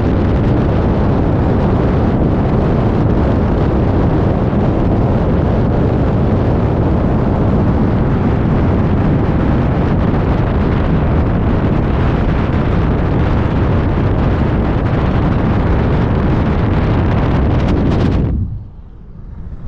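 Wind blasting across a microphone mounted on the outside of a pickup truck at highway speed, with tyre and road noise underneath, loud and steady. It cuts off abruptly near the end.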